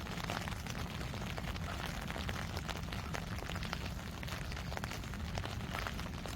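Steady rain, with a dense patter of individual drops ticking on nearby surfaces over a constant low rumble.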